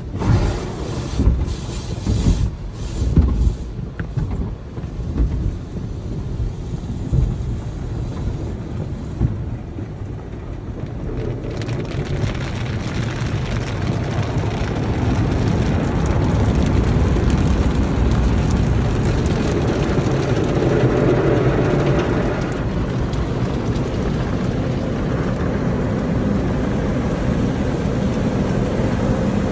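Automatic car wash heard from inside the car: cloth brushes slapping and thudding against the windshield and body in the first few seconds, then a steady rushing of water and scrubbing that grows louder from about ten seconds in.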